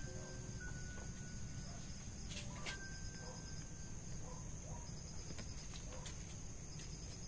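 Crickets trilling steadily in a high, unbroken tone, with a few soft clicks in the middle. The last faint notes of background music trail off in the first couple of seconds.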